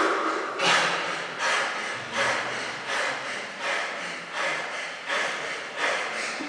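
A man breathing hard and fast while he stands at the top of a heavy barbell back squat, catching his breath between reps of a high-rep set. About eight quick, heavy breaths, roughly one every three-quarters of a second.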